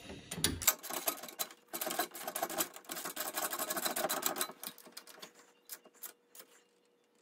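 Hand ratchet wrench clicking rapidly as a bolt is run down to fasten a hose guide to the tractor frame, then stopping with a few scattered clicks.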